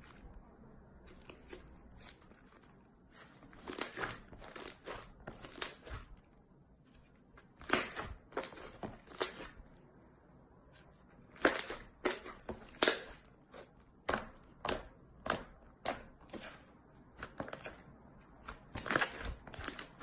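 Thick slime being stretched, folded and pulled apart by hand, giving off sticky crackles and pops that come in irregular clusters with quieter pauses between.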